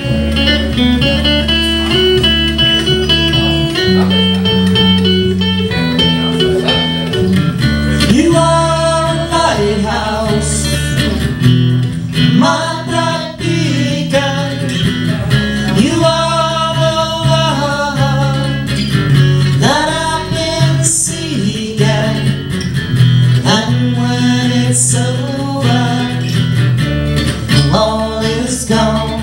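A live acoustic band playing: acoustic guitar over a bass line, with singing.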